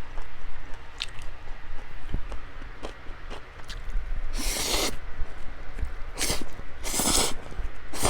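Close-miked eating: a mouthful being chewed, with soft wet mouth sounds and several short noisy bursts in the second half.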